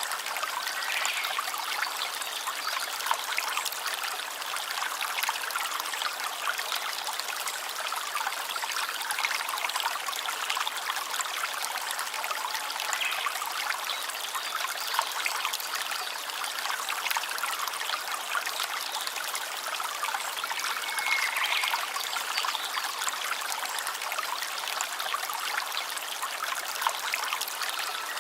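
Small stream babbling and trickling steadily over stones, a continuous splashy rush of water.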